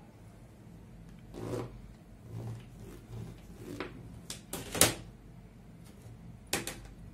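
A long ruler handled on a cutting table over folded fabric: soft scrapes and a handful of sharp knocks, the loudest about five seconds in and another near the end.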